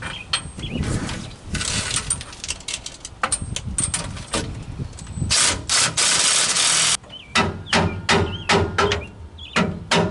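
Cordless impact wrench running the nuts up on a truck's rear-axle leaf-spring U-bolts: one long continuous run about halfway through, then a string of short trigger bursts as the nuts snug up.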